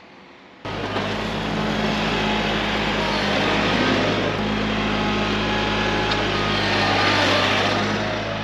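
An engine running steadily at a constant speed, starting suddenly less than a second in, with a steady low hum under a broad rushing noise.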